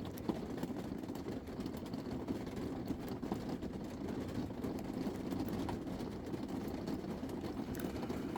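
A steady low rumble with faint, scattered clicks of lock picks working the pins of a lock.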